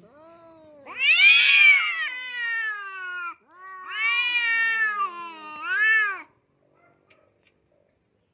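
A cat yowling: two long, drawn-out calls, each rising and then falling in pitch, the second ending in a short upturn. A faint steady low tone comes before the first call.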